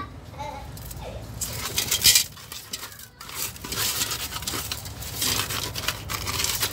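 Hands scrubbing coarse salt into whole tilapia in an aluminium pot: a wet, gritty rubbing and scraping of salt on the fish scales, with light knocks against the pot. It comes in repeated bouts, with a brief pause about three seconds in.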